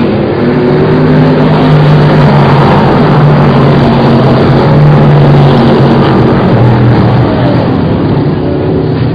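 Car engine running loud under load at a fairly steady pitch, rising and falling only slightly, with road or wind noise underneath.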